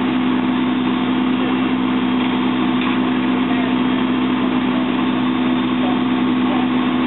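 An engine running steadily at fire-ground equipment, a constant drone with a strong unchanging hum that neither rises nor falls.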